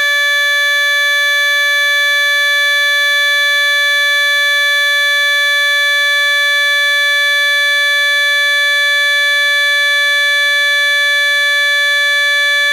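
Trumpet sound effect: one long, steady held note at a single bright pitch, with no change in level.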